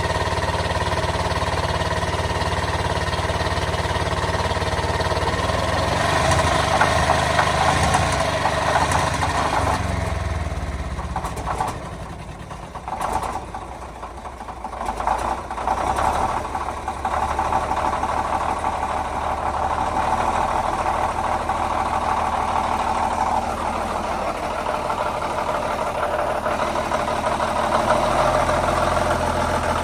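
Vintage Caterpillar D13000 diesel engine running on a cold start, dropping to an uneven, quieter run with scattered knocks for several seconds midway before settling back into steady running.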